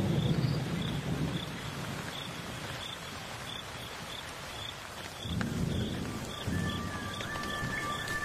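Steady rain falling, with low rolling thunder at the start and again about five seconds in.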